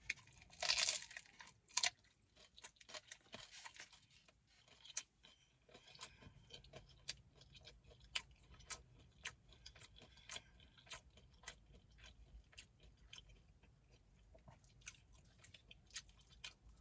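A person biting into and chewing a homemade ground-beef taco close to the microphone: a loud crunchy bite about a second in, then many small crunches and wet mouth clicks as she chews.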